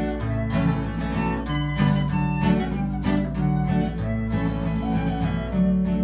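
Instrumental break of an Irish folk song: a tin whistle plays the melody over a strummed acoustic guitar.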